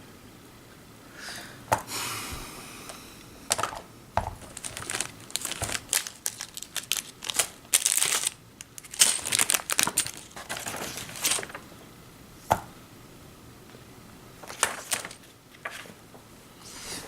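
Hands rummaging through plastic parts bags and kit pieces: irregular crinkling and rustling with a few sharp clicks.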